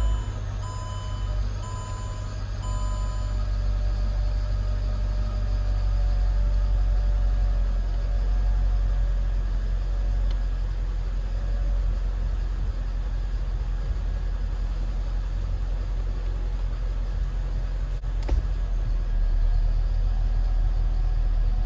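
Mercedes CLS W219 engine idling steadily with a low rumble, just after being started. A short run of the car's electronic beeps sounds in the first few seconds, and a single click comes near the end.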